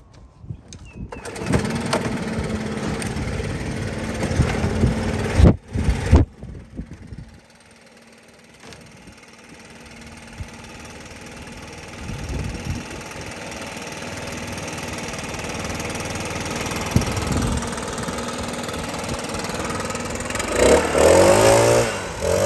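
STIHL backpack leaf blower engine starting about a second in and running unevenly, then revved with a rising and falling pitch near the end.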